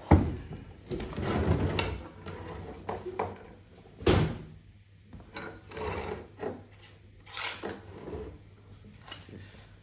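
Bench vise being lifted out of a cardboard box and set down on a wooden workbench: knocks of the heavy vise and its handle against the wood, the loudest right at the start and about four seconds in, with cardboard and plastic wrapping rustling in between.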